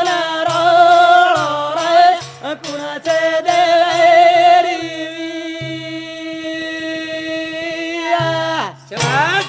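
A man singing a Banjara devotional song, with a hand drum keeping the beat. The voice holds one long note through the middle, then slides down near the end as the drum comes back in strongly.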